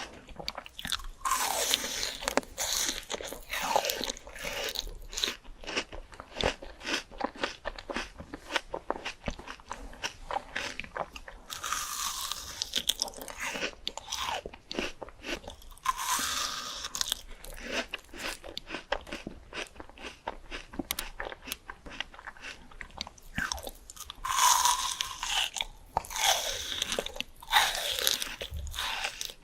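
Close-up crunching and chewing of fresh fruit, steady rapid chews with several louder crunchy bites, a cluster of them near the end.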